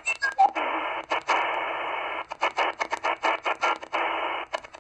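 XHDATA D808 shortwave receiver in upper sideband being tuned up the 20 m amateur band: band hiss from its speaker, chopped into short bursts with clicks as the DSP mutes the audio at each tuning step. A few brief tones near the start.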